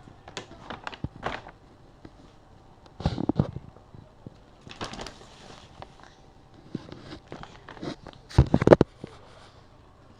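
Packaging being handled and unwrapped: irregular crackling rustles and knocks, with louder bursts about three seconds in and again near the end.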